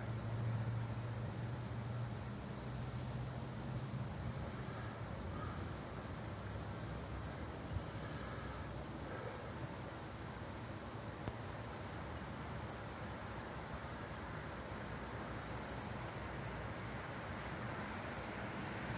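Steady, high-pitched chorus of night insects over a soft hiss, with a low hum that fades out in the first few seconds.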